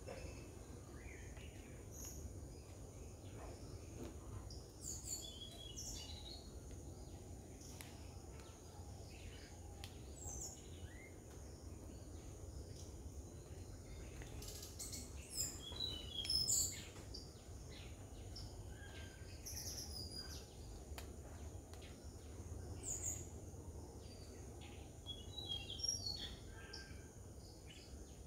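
Scattered short bird chirps and calls, several coming in quick clusters, the loudest about sixteen seconds in, over a steady low background rumble.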